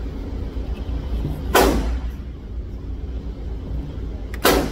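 Two gunshots at an indoor range, about three seconds apart, each with a short echo off the block walls, over a steady low rumble.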